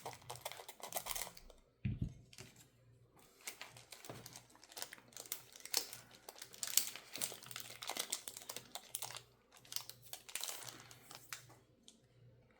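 Foil wrapper of a Pokémon TCG booster pack crinkling and tearing as it is opened, in irregular crackles, with a low thump about two seconds in.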